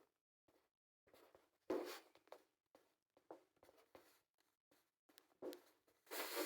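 Faint, scattered rustles and light scrapes, about a dozen short ones, the loudest about two seconds in and near the end: handling noises during the oil cooler leak repair.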